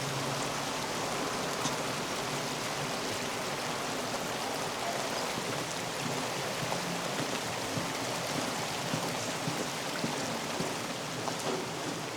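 Steady rain falling, an even hiss with small scattered drop ticks.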